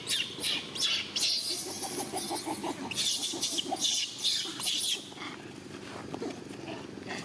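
Long-tailed macaques giving shrill screeching calls in rapid, repeated bursts for about five seconds, then quieter.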